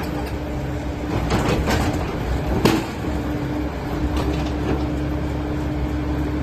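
Cat 307E2 mini excavator running with a steady engine and hydraulic hum, with a few metallic clanks from the working machine and one sharp knock about two and a half seconds in.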